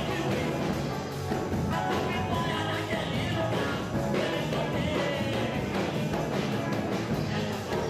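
Band music, a track from a Brazilian gospel album, playing at a steady level.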